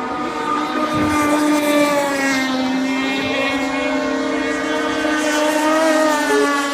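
Several radio-controlled racing boats running at speed together, their motors sounding at once as overlapping steady tones whose pitches slide up and down as the boats speed up and turn.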